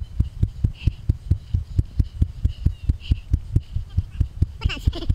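Running footfalls: steady low thumps about three a second, the cadence of a runner's stride, with faint voices briefly near the end.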